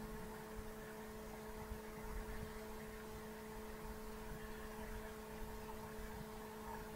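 Quiet room tone dominated by a steady electrical hum of several held tones, unchanging throughout.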